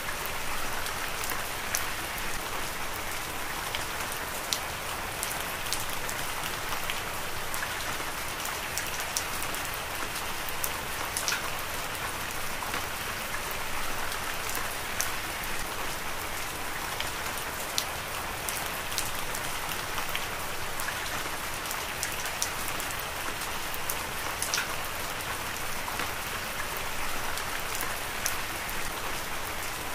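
Heavy rain falling steadily: a dense, even hiss with frequent sharp ticks of single drops.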